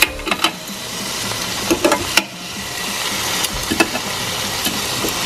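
Beef fajita steak sizzling on the hot grill grate of a Ninja indoor grill, with several sharp clicks of metal tongs against the grate and the meat as the pieces are flipped.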